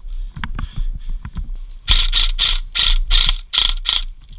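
Airsoft gun firing a quick string of about nine shots over two seconds, after a few faint clicks.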